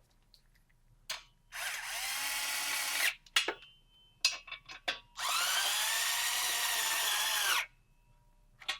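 Cordless power tool running down the nuts on the exhaust flange bolts in two runs, about a second and a half and then two and a half seconds. The motor's pitch rises as it spins up and drops as it stops. Small metallic clicks come between the runs.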